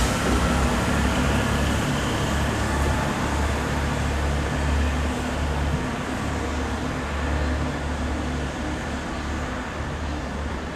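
Class 166 Networker Turbo diesel multiple unit moving slowly, its diesel engines giving a steady low rumble that fades gradually toward the end.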